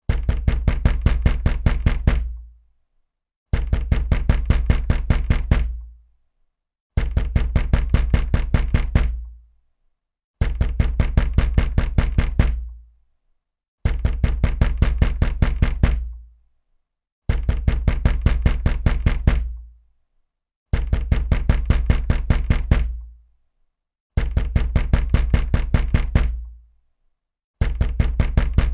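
Heavy, loud banging on a wooden door: bursts of rapid blows, about five a second for roughly two seconds, then a second or so of silence. The same burst repeats eight times at an even pace.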